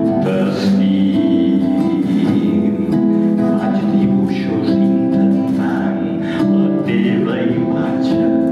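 Acoustic guitar played solo, plucked chords and single notes ringing on in an instrumental passage of a song.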